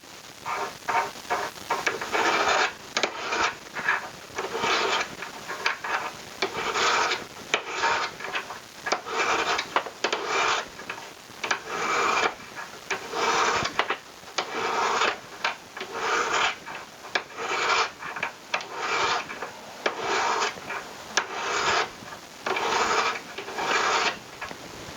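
Hand file rasping across a silver ring in repeated strokes, about one stroke a second, to flatten the ring and bring it to thickness.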